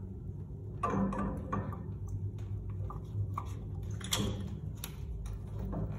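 Chrome metal parts of a Sloan flushometer valve clicking and knocking as the valve body is worked onto the toilet's flush tube by hand: a handful of separate sharp clicks, with a steady low hum underneath.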